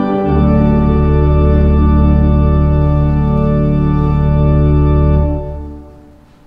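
Organ holding a full chord with deep bass, the chord shifting just after the start and then held steady until it is released about five seconds in, the sound dying away over about half a second.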